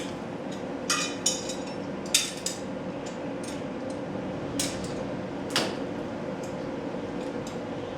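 Scattered sharp metallic clinks and taps of hand tools and small hardware being handled during garage door installation, over a steady low hum.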